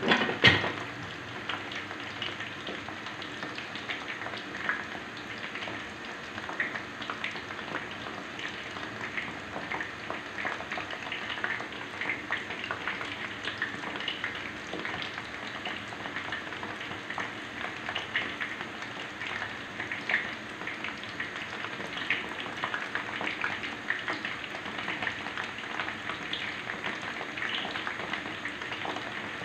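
Ketupat palas, palm-leaf-wrapped rice parcels, deep-frying in hot oil in a wok: a steady sizzle with a constant scatter of small pops and crackles. There is one louder crack right at the start.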